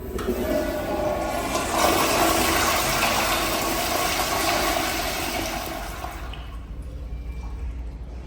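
Flush of a Toto commercial restroom fixture with a flushometer valve: a rush of water that builds over the first two seconds, runs strongly, then tapers off from about six seconds in.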